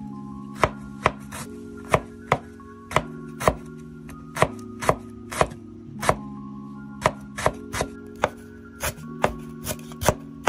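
Steel cleaver slicing lemongrass stalks on a bamboo cutting board: sharp chops at an uneven pace of about two a second, over background music.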